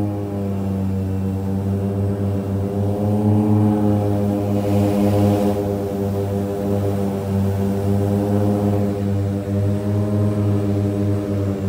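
Cabin drone of a DHC-6-400 Twin Otter's two Pratt & Whitney PT6A turboprops and propellers in flight: a steady low hum with several tones above it that waver slightly in pitch. A short hiss rises and falls about five seconds in.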